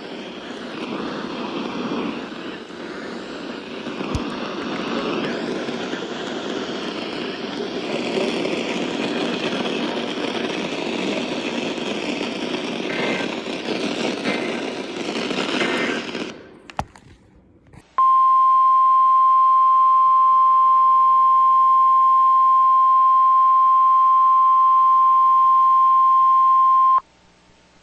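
A stretch of loud, even hiss-like noise, with no speech in it, stops about sixteen seconds in. After a short quiet gap comes the NOAA Weather Radio 1050 Hz warning alarm tone: one loud, steady tone for about nine seconds, sounded as the weekly test of the alarm.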